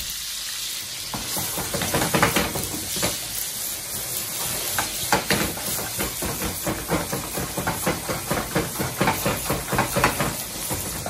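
Wagyu beef cubes and walnuts frying in a nonstick pan over full heat: a steady sizzle that breaks, about a second in, into loud, dense, irregular crackling and spattering.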